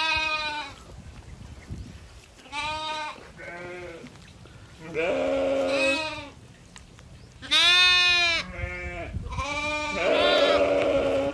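Domestic goats bleating: a series of about eight short wavering calls, each under a second, some slightly higher-pitched than others, with brief pauses between.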